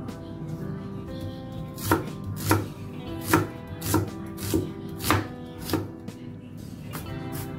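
Kitchen knife chopping a red onion on a plastic cutting board: seven sharp knocks of the blade striking the board, about one every 0.6 seconds, starting about two seconds in.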